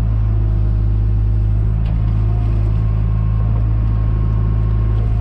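John Deere 310G backhoe's diesel engine running steadily with a deep, even hum.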